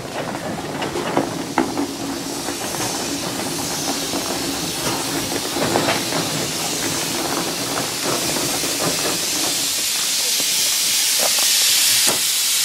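Burrell steam traction engine hissing steam, the hiss growing steadily louder from a couple of seconds in to the end, with a few light clicks.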